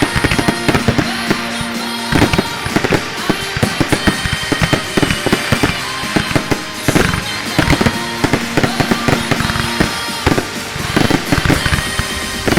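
Fireworks display going off in rapid, irregular bangs and crackles over loud electronic dance-pop music.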